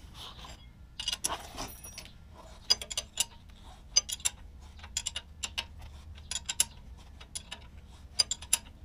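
Ratchet wrench clicking in short runs of a few clicks as it winds the threaded bolt of a rear trailing arm bushing press tool, pulling a new bushing into a BMW E46 rear trailing arm.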